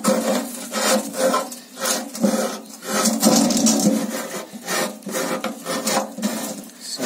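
An ordinary knife blade cutting through the thin steel lid of a 20-litre cooking oil drum, metal scraping in short, irregular strokes about two a second as the blade is pushed down and sideways.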